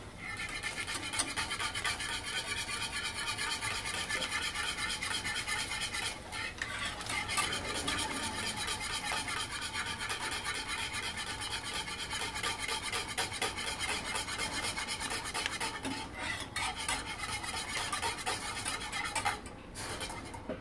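Wire whisk beating a foamy gelatin mixture in a nonstick saucepan: fast, steady scraping and clinking strokes against the pan. The strokes break off briefly about six seconds in and again near the end.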